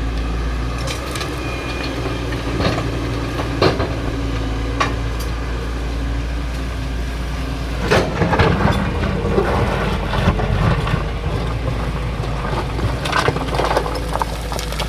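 Excavator engine running steadily under sharp cracks and crunching as material is broken. The crunching is heaviest in a burst about eight seconds in and comes again near the end.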